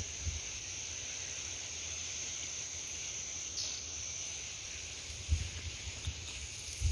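Steady high-pitched insect chorus, crickets or cicadas, with a few low thumps near the end.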